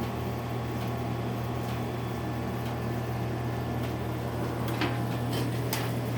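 A steady low hum, with a few sharp clicks near the end.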